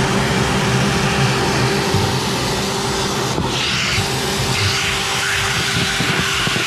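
20V lithium cordless drill running a scrub brush against a truck's floor and seat bracket: a steady motor whine under the rushing sound of the bristles scrubbing.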